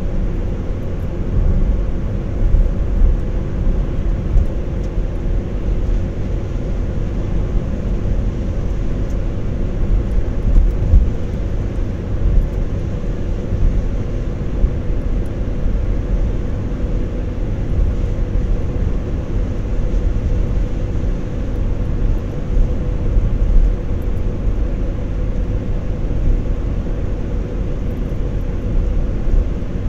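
Car driving at steady speed, heard from inside the cabin: a continuous low rumble of tyres on the road and the engine, with a faint steady hum.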